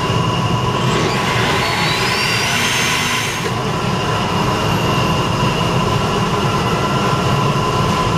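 Blender motor running steadily, puréeing cooked cauliflower, hot cream and egg whites until smooth, with a faint rising whine about two seconds in.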